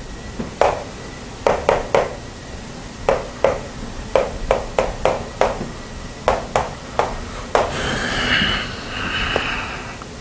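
Writing on a board during a maths lesson: clusters of quick, sharp taps, then a scratchy rubbing for about two seconds near the end.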